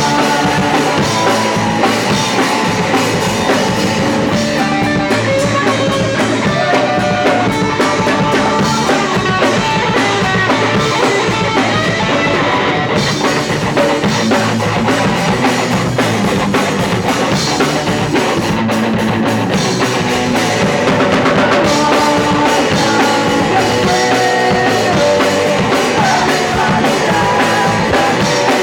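Punk rock band playing live and loud, with a pounding drum kit and guitar.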